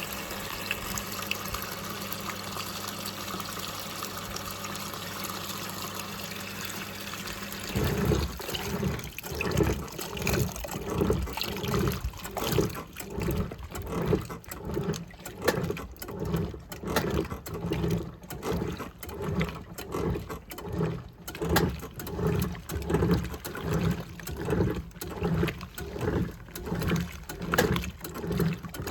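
Homemaker 7 kg top-loading agitator washing machine filling with water, then about eight seconds in switching into agitation on its regular action. The agitator swishes the clothes and water back and forth in regular strokes, about three every two seconds.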